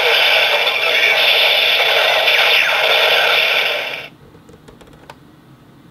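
Electronic sound effect from a Bandai DX Tridoron toy car's small speaker, set off from the trigger point on the car body in its Type Wild form: a loud, noisy rushing sound for about four seconds that cuts off suddenly, followed by a few faint clicks.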